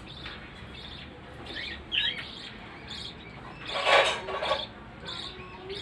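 Budgerigars chirping in short, repeated high calls, with one louder, harsher burst about four seconds in.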